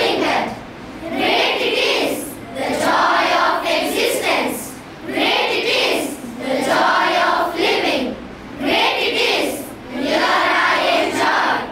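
A group of schoolchildren reciting a poem together in unison, in phrases of a second or two with short breaks between them.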